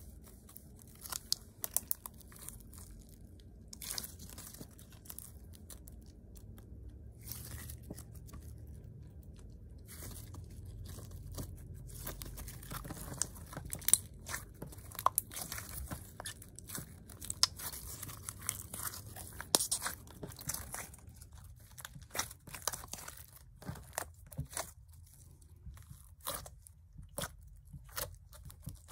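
Dark blue glitter slime being squeezed and kneaded by hand, giving irregular sticky clicks and crackles as it is pressed and pulled.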